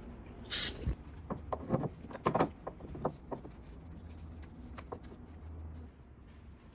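A short hiss of aerosol silicone spray about half a second in, then a string of light clicks and knocks as the coolant hose, its spring clamp and the clamp pliers are handled and worked onto the water pump.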